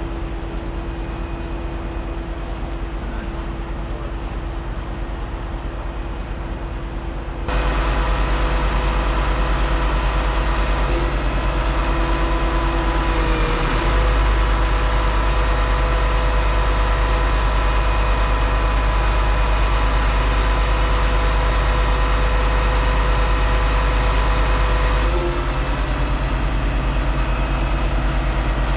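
Heavy diesel truck engine running steadily. About seven seconds in it abruptly becomes louder, with a stronger low hum, and it eases back slightly near the end.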